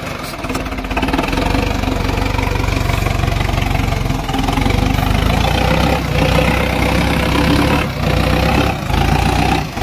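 Sonalika DI 750 tractor's diesel engine running hard under load as the tractor climbs a steep sand slope, its rear wheels slipping and spraying sand. The engine grows louder about a second in and steadies, with a few short dips near the end.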